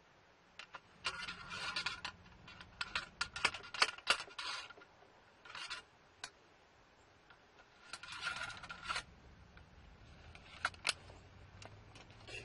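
M1861 Springfield rifle-musket being loaded: several bursts of metal scraping with sharp clinks, from the steel ramrod being drawn and worked in the barrel.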